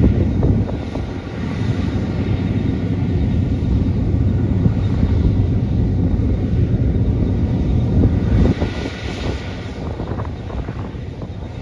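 New Holland CR11 combine harvester running while harvesting wheat: a loud, steady engine and machinery drone that swells about eight seconds in, then eases slightly.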